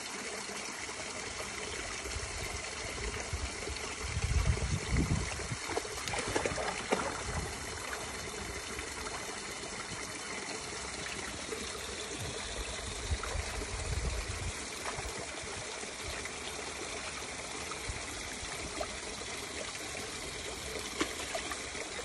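Shallow stream water trickling steadily, with a dog wading in it, and a few low rumbles a few seconds in and again about two thirds of the way through.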